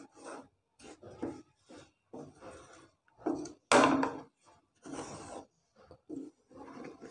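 A spoon scraping the bottom of a pan while maida and sugar are stirred and roasted in ghee. It makes a run of short, irregular scraping strokes, about two a second, with the loudest stroke about four seconds in.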